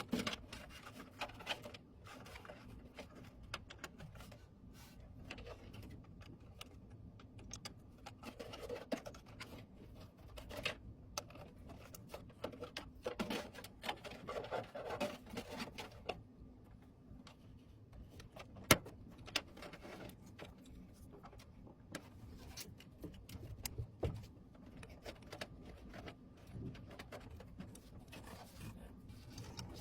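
Scattered clicks, taps and brief rustles of computer parts being handled during a PC build, with one sharp click about two-thirds of the way through.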